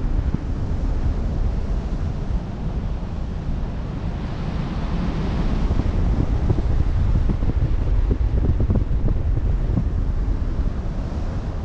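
Wind buffeting the microphone over open sea, with the wash of waves underneath; the wave wash swells about five seconds in.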